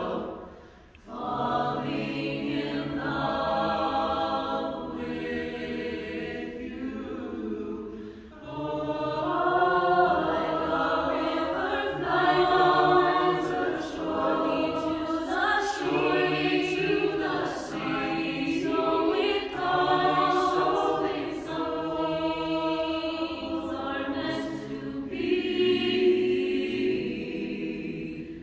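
Mixed-voice a cappella choir singing a song in harmony, with brief breaks between phrases about a second in and about eight seconds in.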